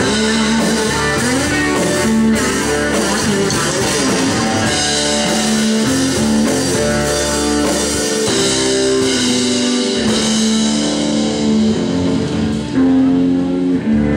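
Live blues band playing an instrumental passage: an electric guitar lead with bent notes over bass, drum kit and keyboard.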